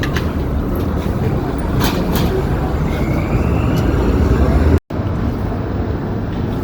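Loud city street traffic: a steady low rumble of engines and tyres, with a faint rising whine from a passing vehicle about three seconds in. The sound cuts out for an instant about five seconds in.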